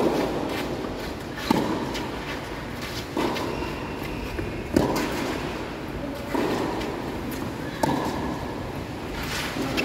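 Tennis ball struck back and forth in a rally: a racket hit about every one and a half seconds, alternately louder and fainter, each echoing briefly.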